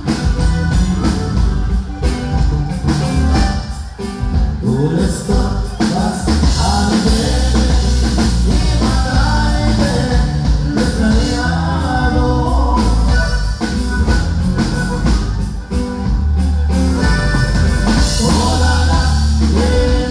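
Live norteño music: accordion, bajo sexto, electric bass and drum kit playing together, with a man singing a vocal line over the band through much of it.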